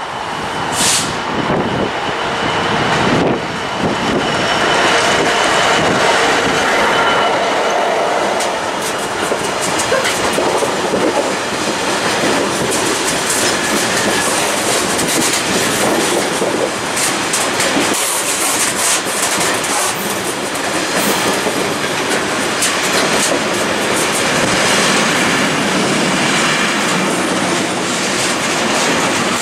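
Freight train running through at speed: the locomotive passes in the first few seconds, getting louder. It is followed by a long line of loaded open box wagons clattering steadily over the rail joints.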